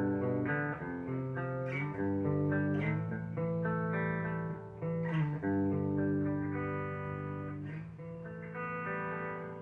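Epiphone Les Paul Custom Pro electric guitar played on a clean, undistorted tone through a Joyo Bantamp Zombie II amp head and 1x12 speaker cab. Picked notes and chords are left to ring, changing every second or so, with a few sharper pick attacks.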